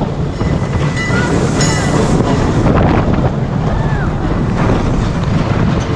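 Wind buffeting the microphone and the rumble of a spinning roller coaster car running along its track, with faint voices in the background.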